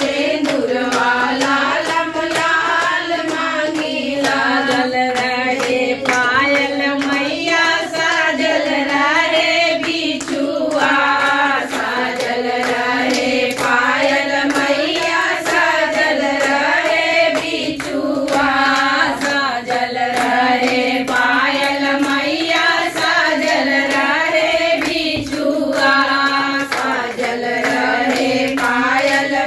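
A group of women singing a folk devotional song to the goddess (devi geet) together, keeping time with steady hand claps.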